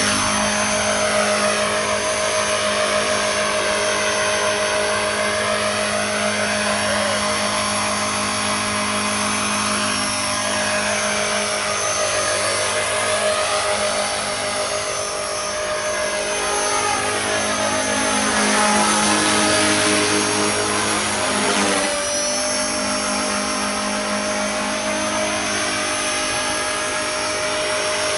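Align T-Rex 450 electric RC helicopter in an MD500 scale body, flying: a steady whine from its electric motor and gears over the whir of the rotor blades. The whir's tone sweeps up and down again and again as the helicopter moves about.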